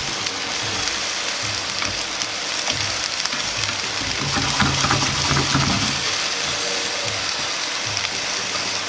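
Cabbage and carrot sizzling steadily in a frying pan over low heat, stirred with chopsticks, the sizzle swelling for a couple of seconds in the middle.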